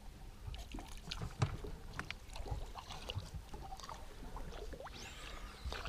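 Water splashing and lapping at the side of a fishing boat as a lure is worked through the surface right beside the hull, with scattered small clicks and knocks.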